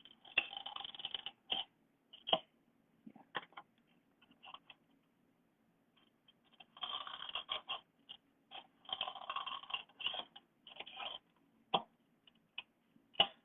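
Scissors cutting into a styrofoam plate: crunchy snips, some single and some in quick runs of about a second.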